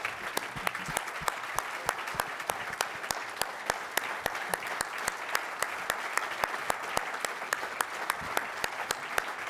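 Audience applauding steadily, with sharper single claps from people close by standing out about three or four times a second.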